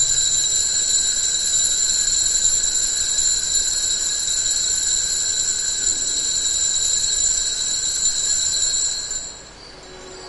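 Altar bell rung continuously during the elevation of the chalice at the consecration, signalling the elevation: a steady high ringing of several fixed tones that stops about nine seconds in.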